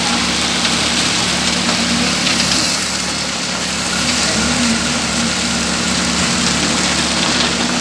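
Concrete mixer engine running steadily, over a continuous rushing noise of the concrete mix.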